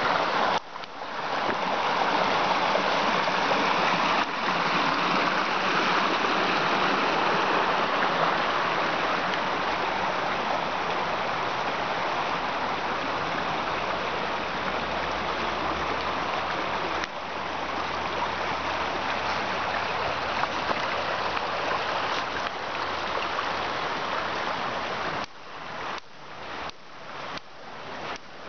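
Small woodland stream rushing steadily over stones and a little cascade. Near the end the water fades and regular footsteps come through, about two a second.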